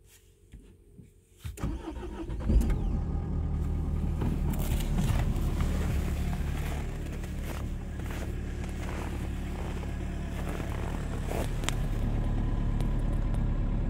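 Renault Clio 1.5 dCi four-cylinder turbodiesel starting from cold at about −13 °C: after a few faint clicks it fires about a second and a half in and catches at once, then idles steadily, the idle easing slightly a few seconds later.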